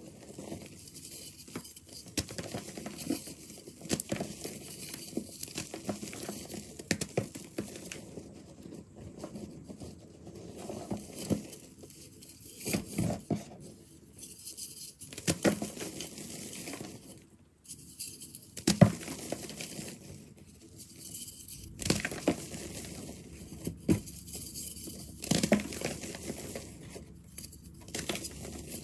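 Crunchy reformed chalk blocks being crushed and crumbled by hand in a bin of loose powder: a run of irregular crackling crunches with soft pattering of falling crumbs, the sharpest crunch a little past the middle.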